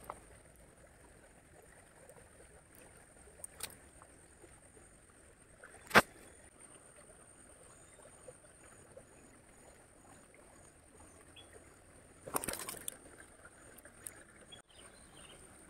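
Quiet ambience of a small shallow stream with a faint steady high-pitched hum. A sharp knock about six seconds in and a brief burst of rustling a little after twelve seconds, from the phone being handled close to its microphone.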